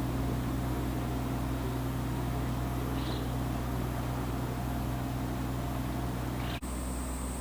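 A steady, low mechanical hum, like a motor or engine running, that holds one pitch throughout. It briefly drops out about six and a half seconds in.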